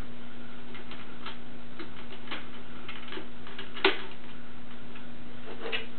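Plastic parts of a Power Rangers R.P.M. Megazord toy being handled and clicked into place: scattered light clicks, with one sharper click about four seconds in, over a steady low hum.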